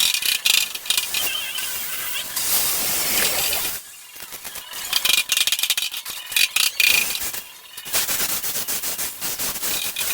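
Welding arc on steel body panels crackling and sputtering in runs of rapid clicks, with two brief pauses between welds, about four seconds in and again near eight seconds.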